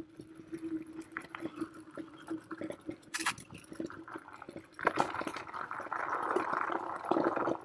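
Varla Eagle One Pro electric scooter ridden over a dirt trail: tyres rolling over the ground with many small clicks and rattles under a faint steady motor whine. About five seconds in, the tyres roll onto loose gravel and the crunching grows louder.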